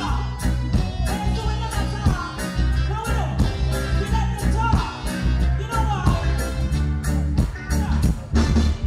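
Live reggae band playing through a concert PA, with a steady drum beat and heavy bass. A woman's voice sings in phrases over it.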